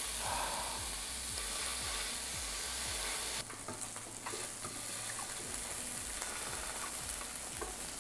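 Cubes of Wagyu beef sizzling as they sear in a nonstick frying pan, with small clicks as metal tongs turn them. The sizzle quietens suddenly about three and a half seconds in.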